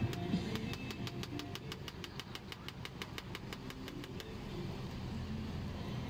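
Knife chopping a banana into slices against a steel tabletop: a quick, even run of taps, about six or seven a second, that starts about half a second in and stops about four seconds in. Under it runs a steady low rumble.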